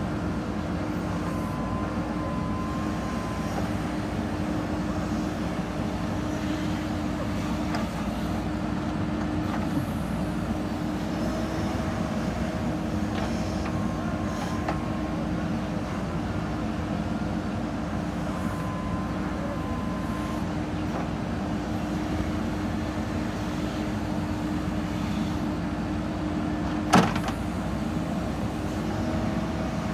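Diesel engine of a JCB 3DX backhoe loader running steadily while it works, with a few brief higher whines now and then and one sharp knock near the end.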